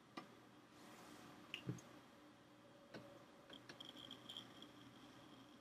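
Near-silent room tone with a handful of faint computer-mouse clicks, a few of them bunched together about four seconds in.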